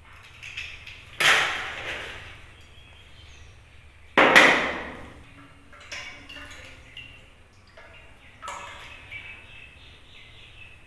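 Eggshells being cracked and pulled apart by hand to separate the eggs. Two loud, sharp cracks come about three seconds apart, each fading over most of a second, with smaller shell clicks between and afterwards.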